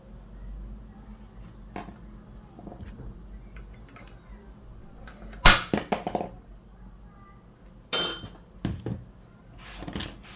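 Sharp metallic clicks and knocks of a screwdriver working on the exposed clutch and chain-brake parts of a Stihl 440 chainsaw. A quick cluster of strikes comes about five and a half seconds in, then single knocks around eight and nine seconds and near the end.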